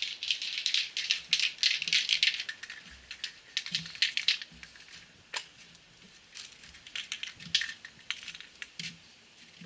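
Fender panel being hand-sanded with fine 1000-grit sandpaper: quick, irregular scratchy strokes, dense at first, pausing briefly about halfway, then resuming more sparsely.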